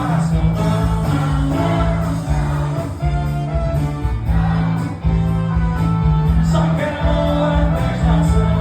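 Brega song played by a band, a singer's voice over guitar and a steady bass line.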